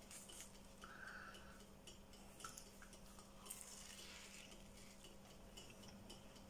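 Near silence with a faint steady hum, scattered faint small clicks, and a soft crunch about three and a half seconds in as a pastry bake is bitten into.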